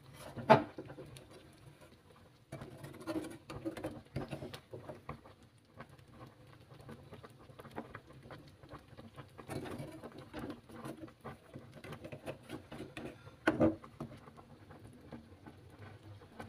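Metal slotted skimmer clinking and scraping in a steel pot of boiling water while lifting boiled fish cakes out, with bubbling and dripping water throughout. A sharp knock of the skimmer against the pot about half a second in, and another near the end.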